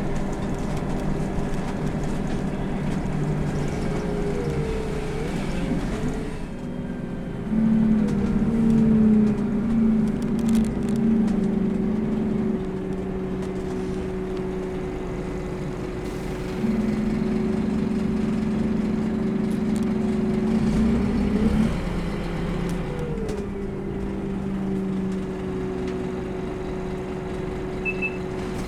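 Scania K230UB bus under way, heard from inside: its 8.9-litre five-cylinder Scania DC9 diesel and driveline running with a steady whine. The engine grows louder twice, for about five seconds each time, about a quarter of the way in and again a little past halfway.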